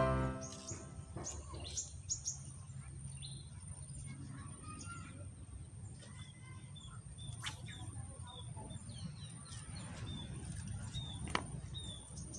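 Outdoor birdsong over a low, steady background rumble: scattered chirps at first, then a regular run of short, high chirps, about two a second, through the second half.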